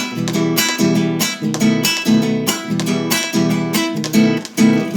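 Acoustic guitar strumming a steady rhythmic pattern in an instrumental passage between sung verses.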